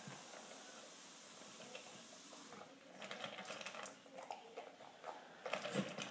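Standard poodle eating dry food from a metal bowl: rapid crunching and pieces clicking against the bowl, starting about halfway in and loudest near the end.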